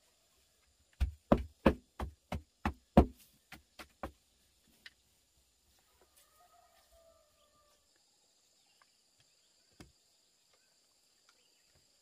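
A wooden stick tamping loose soil around the base of a bamboo post: a run of about ten dull knocks, roughly three a second, loud at first and then fading before stopping. Insects buzz steadily in the background.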